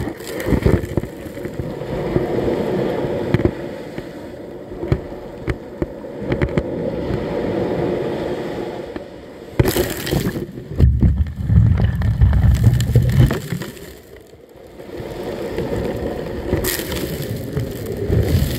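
Sea surf washing over a camera at the waterline as its microphone dips under the water: muffled sloshing water, with sharp splashes about ten seconds in and again near the end, and a heavy low rumble between them.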